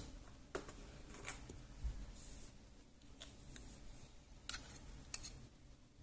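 Faint, scattered light clicks and scrapes of handling in a small room, about half a dozen over a few seconds, with the loudest one past the middle.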